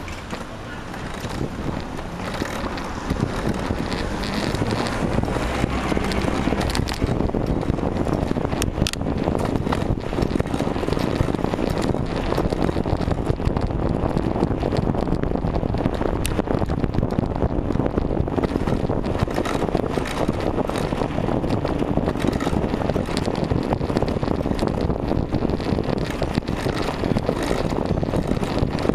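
Wind rushing over the microphone of a bike-mounted camera. It grows over the first few seconds as the bicycle gets moving from a stop, then holds as a steady rush with scattered small knocks.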